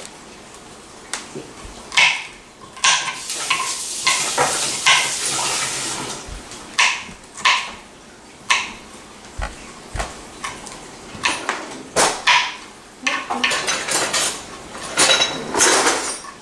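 Kitchen knife chopping red pepper on a cutting board: irregular sharp knocks, some in quick runs. A steady rushing hiss lasts a few seconds, starting about three seconds in.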